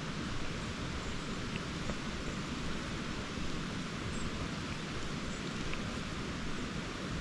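Steady rushing of river water, an even hiss with no separate events.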